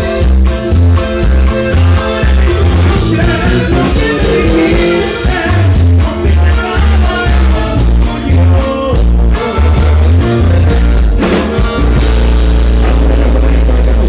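Live band dance music with a steady, pulsing bass and drum beat; about twelve seconds in, the beat stops and a long held low chord rings on.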